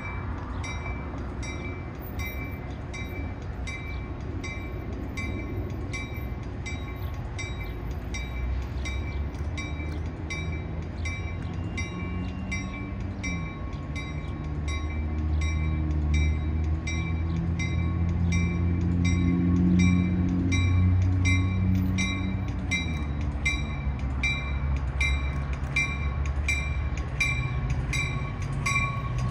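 Grade-crossing bell ringing steadily at about two strokes a second while a Metra commuter train approaches, its low rumble growing louder through the middle as it nears the crossing.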